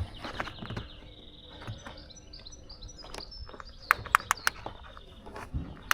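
Metal clicks and taps of a 10mm spanner working a bolt loose, with a quick cluster of sharp clicks about four seconds in. Birds chirp in the background.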